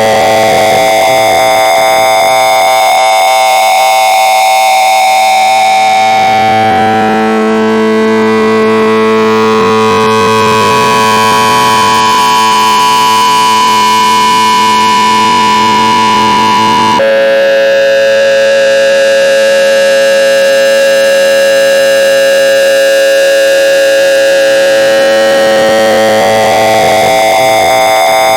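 Loud, harsh electronic tone: many steady pitches sounding together over a hiss, slowly shifting. The tones change abruptly a little over halfway through.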